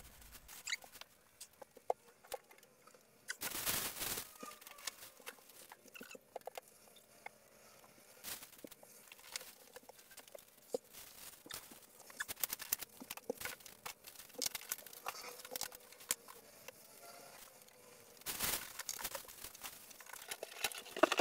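Faint handling noises of a flat-pack furniture carton being unpacked: scattered small clicks, taps and rustles, with two louder bursts of rustling, about four seconds in and near the end.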